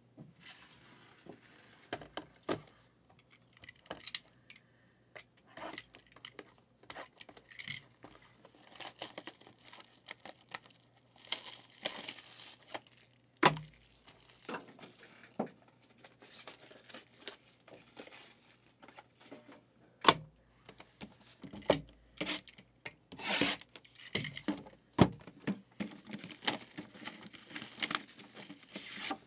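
Shrink-wrap and packaging tearing and crinkling as a sealed Panini Immaculate hobby box is unwrapped and handled, in many short, irregular rustles. Two sharp knocks stand out, about 13 and 20 seconds in.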